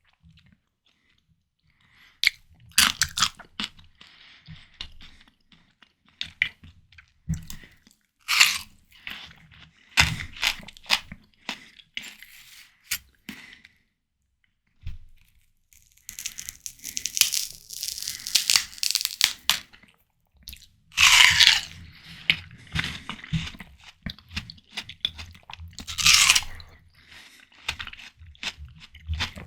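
Close-miked eating of juicy, ripe watermelon: crisp, wet crunches as bites are taken, with juicy chewing between them. There are a few short pauses, and the louder bites come around two-thirds of the way in and near the end.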